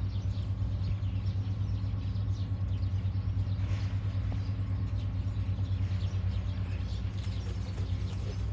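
A steady low rumble throughout, with faint, scattered chirps of small birds above it.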